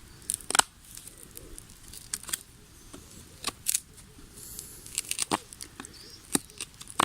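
Knife cutting a notch into a wooden stick: irregular short scrapes and sharp clicks of the blade biting into the wood.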